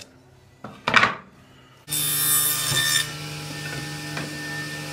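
A sharp wooden knock about a second in. Then a workshop machine's motor starts suddenly and runs with a steady hum, with a loud hiss for its first second or so.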